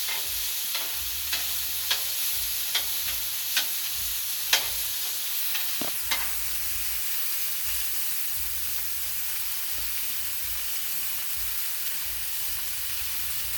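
Chicken sizzling on a Blackstone flat-top griddle, a steady frying hiss. Short sharp taps come roughly once a second over the first six seconds.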